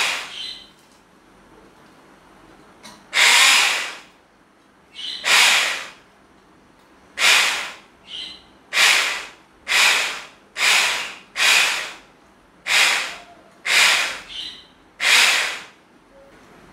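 Electric hand blender whirring in about ten short pulses, each under a second, churning milk, instant coffee, sugar and ice cubes in a tall jug until foamy.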